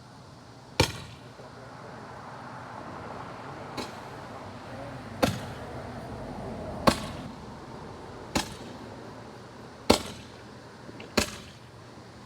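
Handheld Roman candle firing: seven sharp pops about a second and a half apart, over the hiss of the burning tube, which swells in the middle and then dies down.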